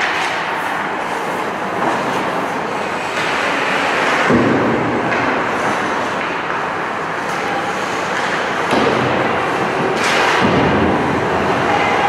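Ice hockey play in a rink: a steady din of skates scraping the ice and echoing arena noise, with sharp knocks from sticks, puck and boards, the loudest about four seconds in and about ten seconds in.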